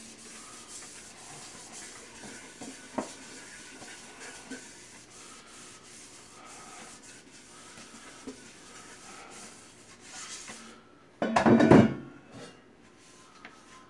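Paper towel rubbing round the inside of an air fryer's pan as it is dried by hand, with a few light knocks. A little past eleven seconds in comes a louder, brief clunk, as the pan is set down on the countertop.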